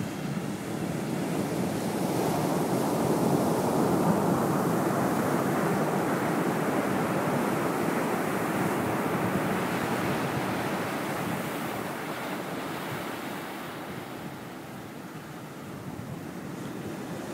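Ocean surf washing up the beach: a steady rush that swells over the first few seconds, eases off about three-quarters of the way through, then builds again.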